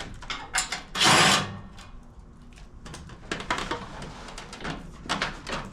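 A power driver spins briefly, about a second in, loosening a muffler-guard bolt. It is followed by a series of light metallic clicks and taps from the socket and hardware being handled.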